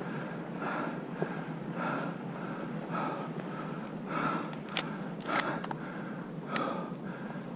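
Legs wading through shallow marsh water, a swish with each stride about every 0.6 s, with a couple of sharp clicks near the middle.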